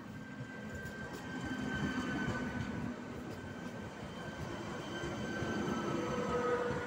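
ČD RegioPanter class 440 electric multiple unit rolling past along the platform. Its wheels and running gear rumble, with several high, steady whining tones over the top. It grows louder as the cars go by, peaking about two seconds in and again near the end.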